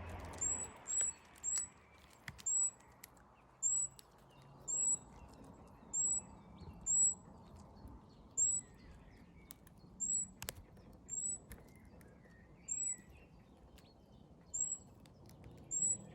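A small bird repeating one short, very high, thin call note, about once a second, with fainter lower chirps from other birds.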